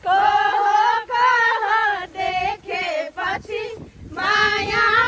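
A song playing: voices singing a melody in held, wavering notes, with two vocal lines at once.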